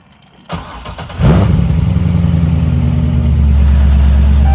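Chevrolet Corvette C6's LS3 V8 being started: the starter cranks about half a second in, the engine catches a second later with a loud flare, then settles into a steady idle whose note changes about three seconds in. The exhaust runs through long-tube headers, an X-pipe and louder aftermarket mufflers.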